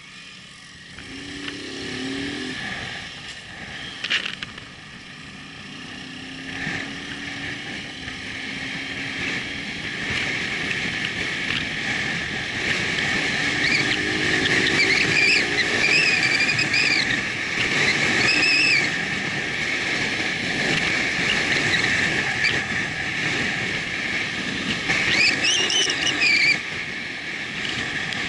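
Motorcycle riding along a road: engine and wind noise on the bike-mounted camera, growing steadily louder as the bike picks up speed. A single sharp knock about four seconds in.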